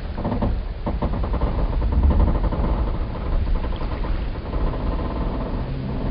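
Wooden boat timbers groaning in a long, drawn-out creak, over a deep rumble, with two sharp knocks near the start.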